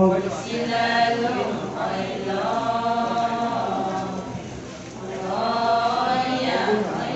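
Chorus of Adi women chanting a ponung song in unison, in three long sung phrases with a brief lull between the second and third.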